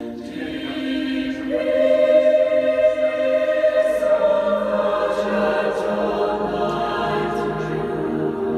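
Choral music, voices singing long held chords, played back over a hi-fi system driven by a Wavebourn Hercules vacuum tube power amplifier through a horn-loaded loudspeaker.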